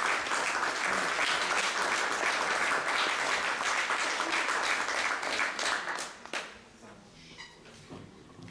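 Audience applauding, dying away about six seconds in, followed by a single sharp knock.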